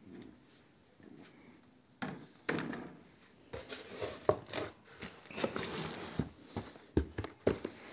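Cardboard shipping carton and boxed kits being handled: irregular rustling and scraping of cardboard with a few sharp knocks, starting about two seconds in.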